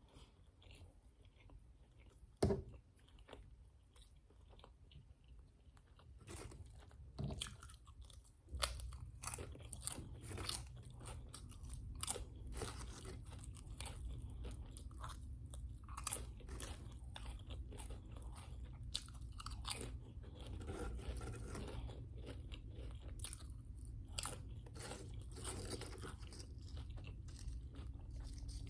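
Close-up eating: food being bitten and chewed with a run of crisp crunches. One sharp bite comes about two and a half seconds in, and the crunching grows dense from about six seconds on.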